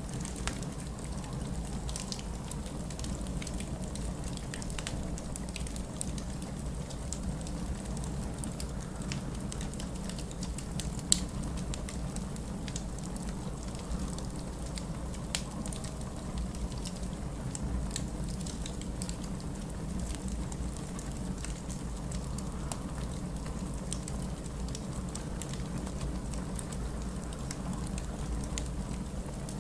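Wood fire in a fireplace crackling, with scattered sharp pops and one louder pop about eleven seconds in, over a steady low rumble.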